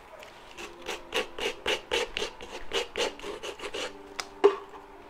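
Coarse 80-grit sandpaper scraped in quick short strokes, about four a second, along the edge of an MDF wooden box, trimming off the overhanging decal paper. A single knock near the end.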